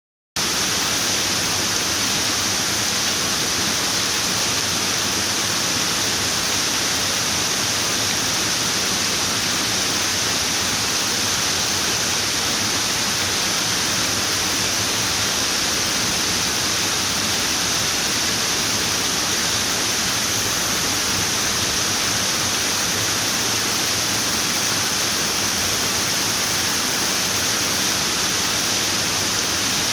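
Running water: a steady, even rushing hiss that stays the same throughout, strongest in its high range.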